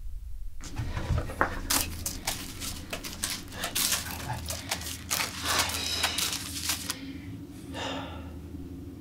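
Small bags and wrappers rustling and crinkling as they are grabbed and handled in quick succession, over a steady low hum; the crinkling stops about seven seconds in, followed by a shorter, softer rustle.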